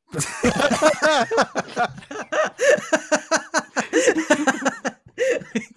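Several men laughing hard together, overlapping fits of laughter with a brief pause near the end.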